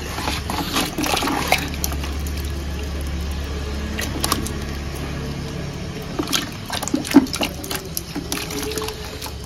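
Water splashing and trickling as live fish are shaken out of a mesh fish trap into a plastic bucket of water. A few sharp knocks come in the second half.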